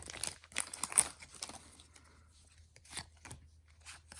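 Foil wrapper of a Pokémon trading card booster pack crinkling and tearing as it is pulled open, with a sharp rip about a second in, then a few faint ticks.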